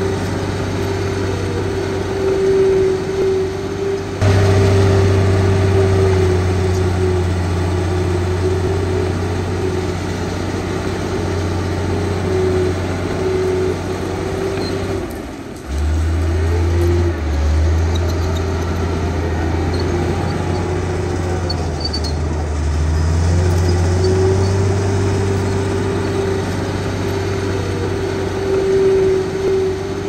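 Heavy diesel engine of a bulldozer working, running steadily with its pitch shifting up and down in places. Halfway through there is a short dip, after which the engine sound is deeper.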